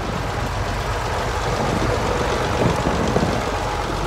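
Farm tractor towing a mower passes close by with its engine running, loudest about three seconds in as it draws alongside.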